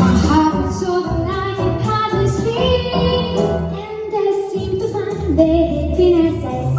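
Girls' vocal trio singing over instrumental accompaniment.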